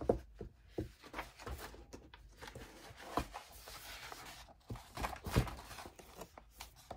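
Handling noise from a cross-stitch piece being moved about: soft rustling of fabric and paper with scattered light taps and knocks, the strongest about three and five seconds in.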